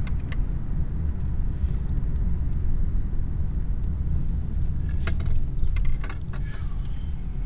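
Car interior noise while driving: a steady low rumble from the engine and tyres on the road. A few brief clicks or rattles come about five to six and a half seconds in.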